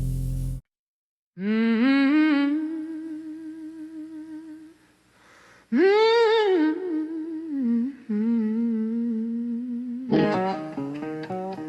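A blues band's last chord rings and cuts off, then after a short gap a woman hums two long wavering phrases without words, and plucked electric guitar notes come in near the end.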